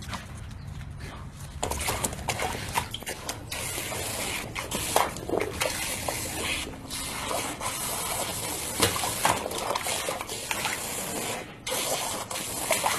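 Garden hose spray nozzle jetting water into a plastic paddling pool: a steady hiss with splashing, starting about a second and a half in and dipping briefly near the end.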